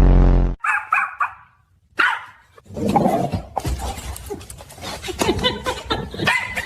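A dog barking, mixed with a person's voice.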